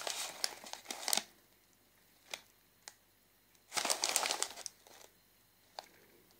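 Gold foil snack bag of roasted sunflower seeds crinkling as it is handled and turned over, in two bursts: one over the first second and another about four seconds in, with a few light clicks between.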